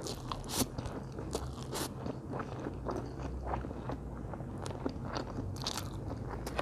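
A person slurping up a mouthful of stir-fried instant noodles and chewing with wet smacking, with a run of sharp slurps and smacks in the first two seconds and more near the end.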